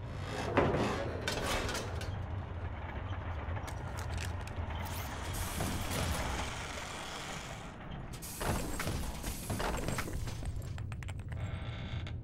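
Mechanical clanking and creaking of a rusty robotic excavator's moving arm and parts over a steady low rumble, with bursts of clatter about half a second in and again around eight and a half seconds.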